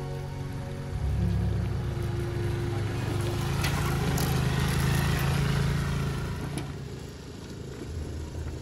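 A motor vehicle's engine running with a low hum. It grows louder about a second in and drops back near the end, with a rushing noise in the middle.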